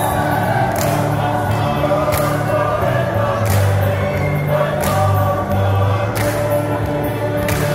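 Women's choir singing in harmony, with held notes and a sharp beat about every second and a half.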